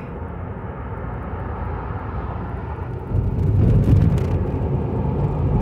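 Tyre and engine noise of a car heard from inside the cabin, a steady low rumble that gets louder and deeper about three seconds in as the car drives into a highway tunnel.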